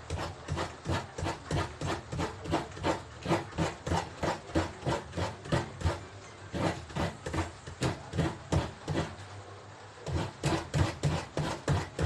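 Mature coconut being grated by hand, the half shell scraped against a coconut grater in quick rasping strokes about three a second, with brief pauses.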